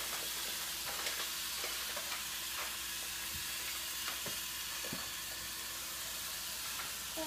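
Sparse faint clicks of a Fisher-Price Geotrax toy train and its plastic track being handled, over a steady low hiss and a faint steady hum.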